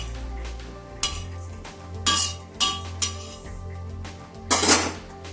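A utensil clinking and scraping on a hot tawa while ginger pieces roast, with several sharp strikes; the longest and loudest comes about four and a half seconds in. Steady background music plays underneath.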